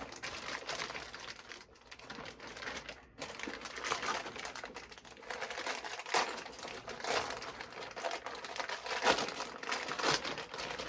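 Protective wrapping being crinkled and pulled off a new handbag: irregular crackling and rustling throughout, with a few louder crackles.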